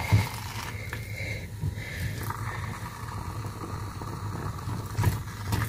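A wooden spoon stirs and presses thick, sticky rice fufu in a non-stick saucepan, with soft scraping and squelching strokes and a knock near the start. A steady low hum runs underneath, and another soft knock comes about five seconds in.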